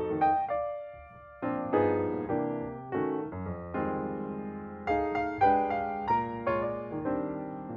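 Background piano music: notes and chords struck and left to ring, with a brief lull about a second in.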